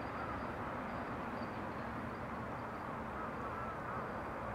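Two-car diesel railcar train running away into the distance: a steady low rumble with hiss. Short rising-and-falling chirps come and go over it several times.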